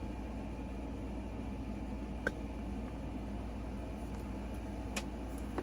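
Steady low room hum with two light clicks, about two seconds and five seconds in, typical of handling a perfume box.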